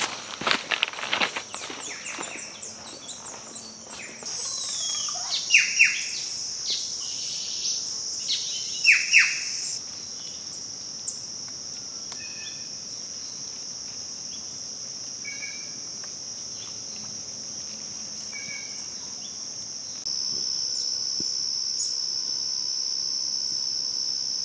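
Rainforest cicadas keeping up a steady high-pitched drone, with birds calling over it: a run of short chirps in the first few seconds and several sharp falling calls about five to nine seconds in.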